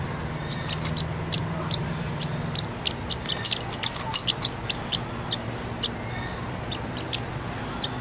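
Pet parrotlet chirping: short, high, sharp chirps, scattered at first and then coming quickly in a run through the middle, over a steady low hum.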